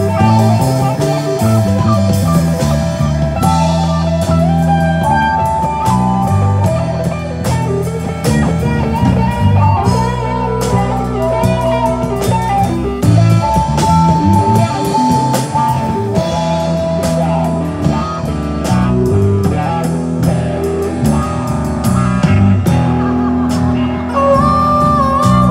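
Live blues-rock played loud and without vocals: electric guitar over bass and drums.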